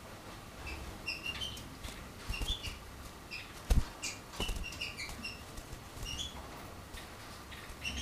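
Hand-tame canary giving short, high chirps every fraction of a second while perched on a finger, with wing flapping and two low thumps about halfway through.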